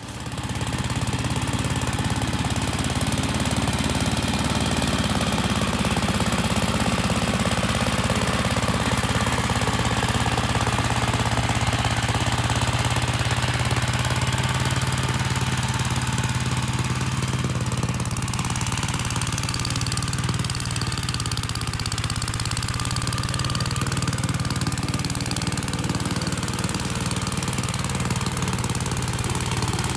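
Gravely garden tractor's engine running steadily at a constant speed.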